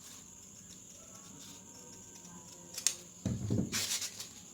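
Scissors cutting and handling stiff buckram: a sharp snip about three seconds in, then about a second of rustling as the buckram is cut and moved.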